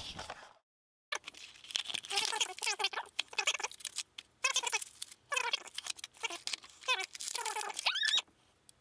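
Clear plastic blister packaging of an action figure being handled and pried apart, crinkling and squeaking in quick scrapes with short gaps, stopping about eight seconds in.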